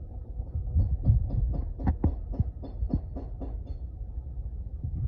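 Whirlpool washing machine drum in an unbalanced spin, knocking against the cabinet about four times a second over a low rumble; the knocking stops about two-thirds of the way through while the rumble goes on. The banging is the sign of an off-balance load.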